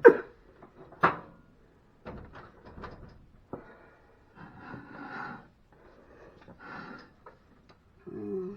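Kitchen items being handled: a sharp knock at the start and another about a second in, then scattered clatter and rustling.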